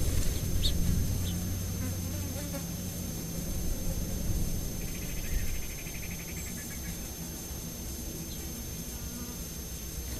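A flying insect buzzing close to the microphone, loudest in the first few seconds and then fading as it moves off. A brief high, rapid trill comes about five seconds in.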